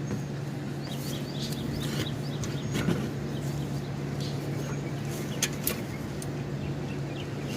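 A few light clicks and knocks of an oil filter wrench being fitted to the oil filter, over a steady low hum, with faint bird chirps.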